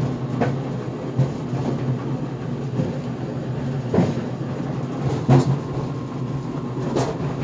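GE Profile Harmony dryer tumbling on its cooldown, a steady low rumble from the turning drum with a few irregular bangs on top, the loudest about four and five seconds in. The owner is not sure what is making the banging.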